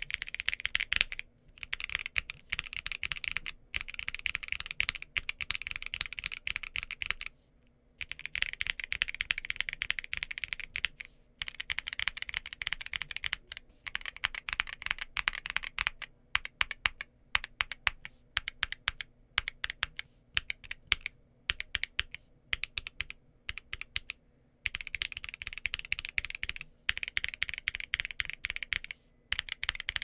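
Fast typing on a Jris80 mechanical keyboard with an aluminium plate, full foam dampening and PBT keycaps. The keystrokes come in quick runs broken by short pauses.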